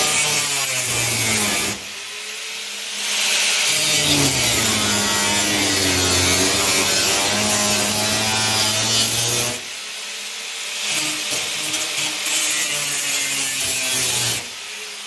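Power cutting tool cutting through sheet steel along a butt seam between a patch panel and a trunk floor, in three long spells with short lulls between, its pitch sagging and rising as the blade bites and eases.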